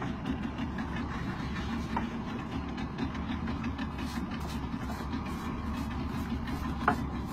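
Small boat engine idling with a steady low rumble, with faint clicks and a brief squeak about seven seconds in.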